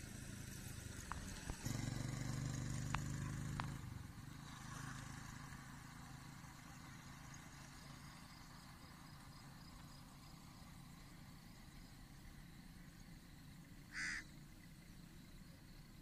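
Low engine hum of a passing motor vehicle for a couple of seconds, fading into faint outdoor background. Near the end comes one short high chirp.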